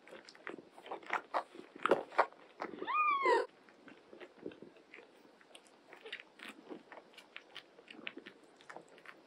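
Nursing kittens suckling at their mother, a run of soft wet smacking clicks. About three seconds in, one short high kitten mew that rises and falls.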